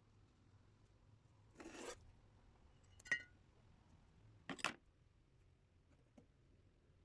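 Faint, sparse handling sounds: a short scrape, then a sharp click with a brief ring, then a quick double scrape.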